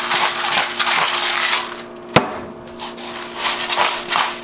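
Hand-twisted spice mill grinding seasoning: a run of rasping grinding strokes that eases off partway through, a single sharp click about two seconds in, then more grinding strokes near the end.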